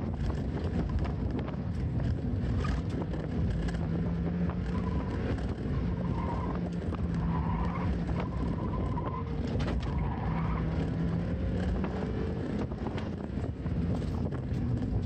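Car engine running under way, with tyre and road noise throughout and a steady engine tone that drops in and out every second or two.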